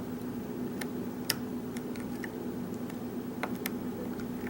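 Sparse, irregular small metallic clicks of a hook pick working the pins of a pin-tumbler lock held under tension, over a steady low hum.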